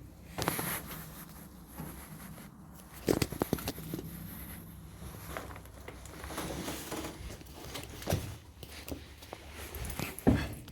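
Scuffing footsteps and rustling clothing, with scattered knocks. The sharpest knocks come about three seconds in and again just before the end.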